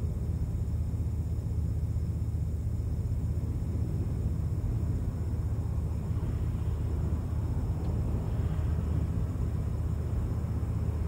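Wind noise on the microphone: a steady, low rumble with a faint rise in hiss from about six to nine seconds in.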